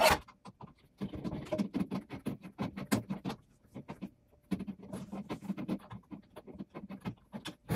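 A float being fitted and hand-screwed onto the metal floating Sumpster: a sharp knock right at the start, then runs of quick scratchy clicks and rattles of the parts being handled and turned.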